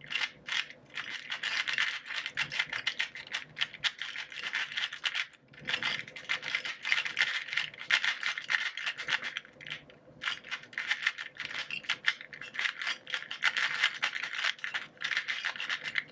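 A new, unlubricated Dayan 2x2 speed cube's plastic pieces clicking as it is turned rapidly by hand, in quick runs of turns with short pauses about five and a half and ten seconds in. The cube is still tight and not yet lubed.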